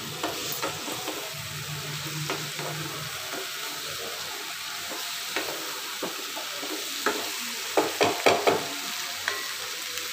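Raw banana pieces sizzling in hot oil and spices in a non-stick frying pan while being stirred: a steady hiss with scattered knocks and scrapes of the stirring utensil against the pan, a quick cluster of them about eight seconds in.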